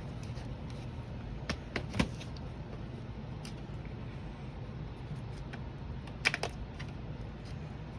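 A few sharp plastic clicks and taps as a thin blade pries along the seam of a laptop's plastic bottom cover, clustered about two seconds in and again near six seconds, over a low steady hum.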